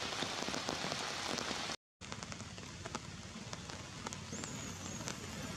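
Rain pattering steadily, with many small ticks of drops; the sound cuts out completely for a moment a little before two seconds in.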